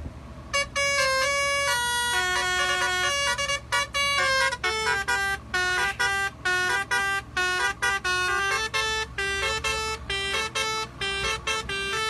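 Truck's telolet-style musical horn playing a melody of stepped notes, starting about half a second in. The first notes are held, then from about three and a half seconds in it plays a fast run of short staccato notes. A steady low rumble from the truck runs underneath.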